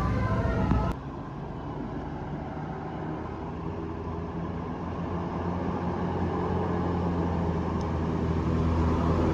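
A bus's multi-tone telolet horn playing its tune, cut off suddenly about a second in; then the bus engine running steadily, getting gradually louder toward the end.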